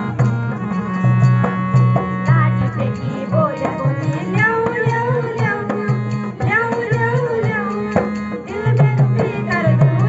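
Folk dance song playing loudly: a steady drum beat throughout, with a singing voice coming in about two seconds in.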